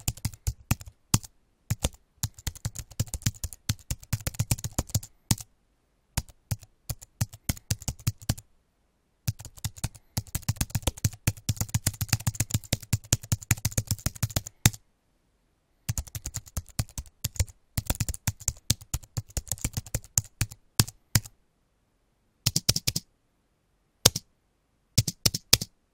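Computer keyboard typing: fast runs of keystrokes broken by short pauses, thinning to a few isolated key presses near the end.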